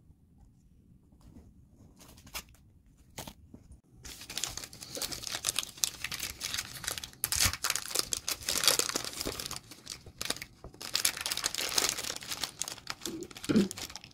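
Paper or plastic wrapping crinkling and rustling as it is handled, a dense crackle that starts about four seconds in after a few soft clicks.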